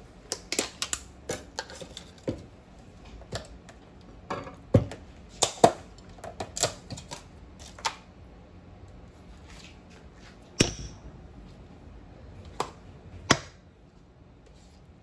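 Wooden spoon working thick mashed potatoes in an aluminium pot, knocking and scraping against the pot's sides in irregular clicks and taps, with a few sharper knocks.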